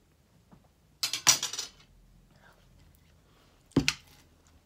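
Ceramic bowls and metal cutlery clattering together briefly about a second in, then a single sharp clink of a fork against a bowl near the end.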